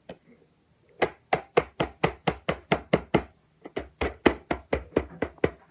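Coloured pencil scribbling quickly back and forth on a colouring-book page on a table, about four or five strokes a second, in two runs with a brief pause a little after three seconds.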